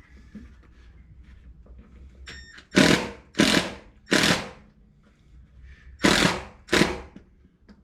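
A power drill/driver runs screws into a truck bed cap in five short trigger bursts, each about half a second, the driver feathered so as not to strip the screws.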